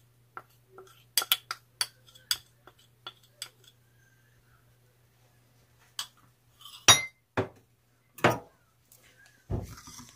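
Metal spoon tapping and scraping against a small ceramic bowl while cornstarch is spooned into a sauce, a quick run of light clinks. After a pause come a few louder clinks of metal on ceramic, and near the end a wire whisk starts stirring the sauce in the bowl.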